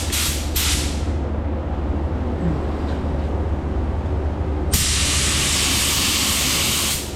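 Compressed-air paint spray gun hissing: two short bursts in the first second, then one steady spray lasting about two and a half seconds, starting a little before five seconds in. A steady low hum runs underneath.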